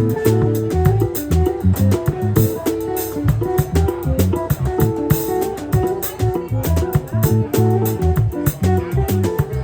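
An organ trio (organ, guitar and drums) playing an instrumental groove live. A moving bass line runs under held chord tones and guitar, with constant drum and cymbal strikes.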